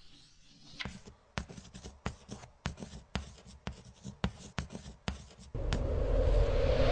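Pencil-on-paper scratching sound effects: a quick run of sharp strokes, about three a second. After about five and a half seconds a loud swell of noise builds and takes over.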